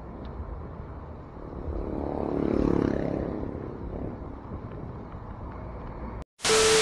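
Low wind and road rumble, with a motor vehicle passing, louder about two to three seconds in. Near the end the sound cuts out briefly, then a loud whooshing rush with a held tone begins.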